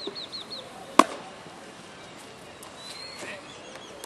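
A single sharp crack of a baseball impact about a second in, loud against the background. A bird chirps a quick series of short notes at the start.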